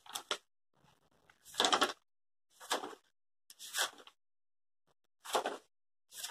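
Short rustling scrapes, roughly once a second with silence between: cotton thread and crocheted fabric being handled as a crochet hook is worked through the stitches.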